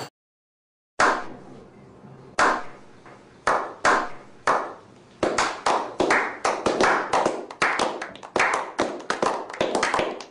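Slow clap: hands clapping sparsely, about once a second, starting about a second in, then more hands joining and the claps quickening into a small group's applause from about halfway through.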